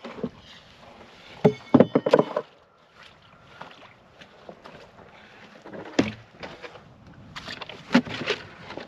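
Plywood sheet being worked loose from the ice and lifted: a quick cluster of loud wooden knocks and scrapes about a second and a half in, then scattered lighter knocks and steps on the ice as the sheet is carried.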